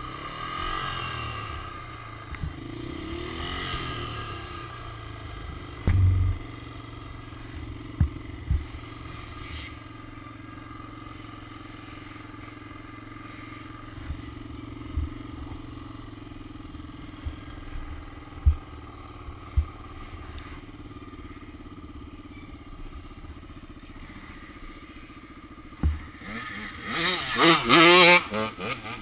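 Dirt bike engine heard from the bike itself, running and revving up and down along a rough trail, with sharp thumps from the bike hitting bumps. Near the end there is a loud burst of revving that climbs and falls in pitch.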